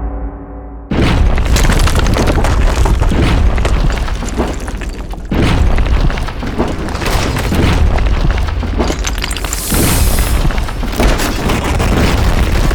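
Designed sci-fi attack sound effects for an alien fighting machine. A fading pitched tone gives way about a second in to a sudden heavy boom. A dense, crackling blast follows and runs on, with new booming hits about five and about nine and a half seconds in.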